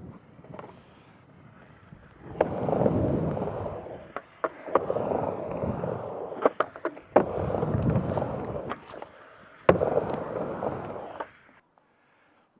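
Skateboard wheels rolling fast up and down a vert ramp in three long surges, with about five sharp clacks of the board and trucks striking the coping and deck on rock to fakie, board slide and landings. The rolling stops about a second before the end.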